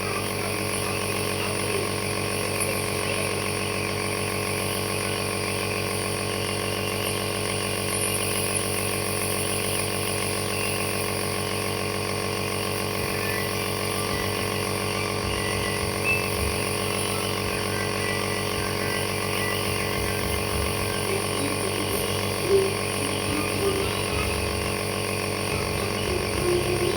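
Compressor nebulizer running with a steady mechanical hum.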